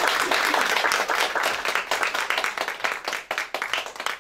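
Audience applauding, dense at first and thinning to scattered claps near the end.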